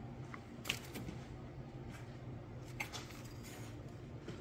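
Quiet background with a low steady hum and two faint clicks, one about a second in and one near three seconds.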